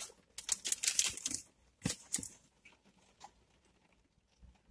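Packaging rustling and crinkling in a few short scratchy bursts as items are handled, thinning out to a couple of faint clicks in the second half.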